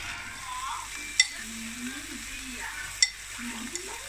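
Pork sizzling on the hot domed grill of a Thai mookata (hot pot BBQ) pan, a steady sizzle with two sharp clicks, about a second in and again about two seconds later.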